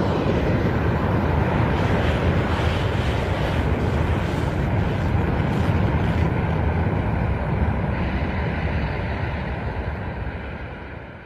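Kaiju sound effect for Gamera: a long, steady, deep noise that starts suddenly and fades out over the last few seconds.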